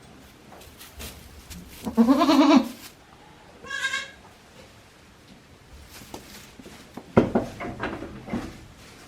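Goats bleating: one loud, wavering bleat about two seconds in, then a shorter, higher-pitched bleat about a second later. Near the end there are rustling and light knocks.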